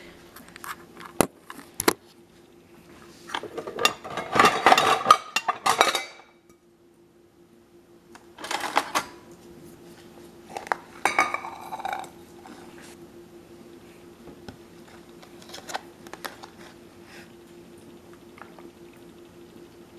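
Dishes being handled on a granite countertop: a plastic food container and a ceramic bowl knock and clink as food is moved from one to the other. A longer, loud clatter comes a few seconds in and shorter ones near the middle, over a faint steady hum.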